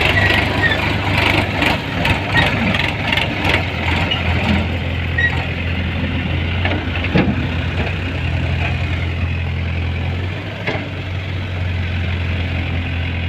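Heavy diesel engine running steadily at a low, even pitch, with a few sharp knocks and clanks in the first few seconds.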